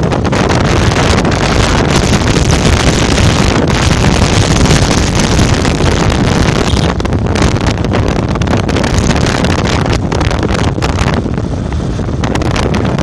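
Loud, steady wind noise on the microphone of a phone filming from a moving vehicle at road speed, over engine and road noise.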